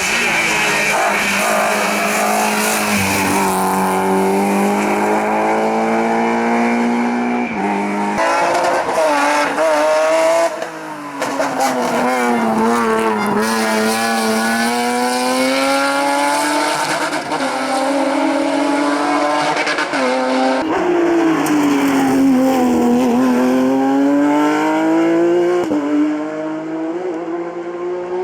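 Race car engines at full throttle on a hillclimb, the pitch climbing and dropping again and again through gear changes and braking, with tyre squeal. The sound changes abruptly several times, as if from one car or spot to another.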